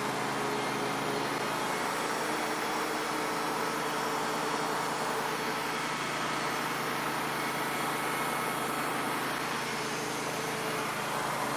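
Band sawmill running steadily, its engine holding an even note while the band blade cuts lengthwise through a pine log.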